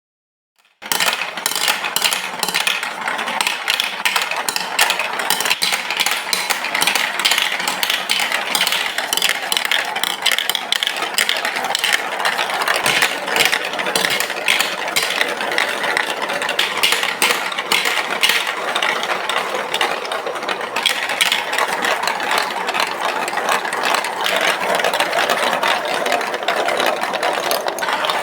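Marbles rolling and clattering down a plastic Lego Duplo block track: a dense, continuous rattle of many quick clicks that starts suddenly about a second in.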